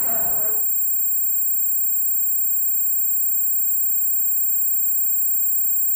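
Music cuts off about half a second in, leaving a steady, very high-pitched electronic whine with a few fainter steady tones beneath it.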